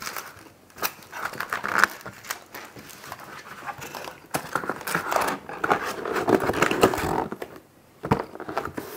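Empty cardboard pizza box being handled: its greasy paper liner crinkling and rustling and the cardboard flaps scraping, with irregular knocks and a sharp knock about eight seconds in as the lid is shut.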